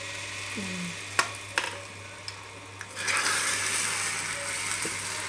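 Hot tempering oil with fried onions, mustard and fenugreek poured from a metal ladle into a pot of fish curry. Two sharp knocks come about a second in, then a loud sizzle starts about three seconds in and eases off near the end.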